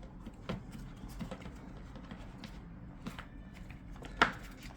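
Scattered light taps and clicks of boxed collectible-card packaging being handled and moved on a table, with one sharper knock about four seconds in.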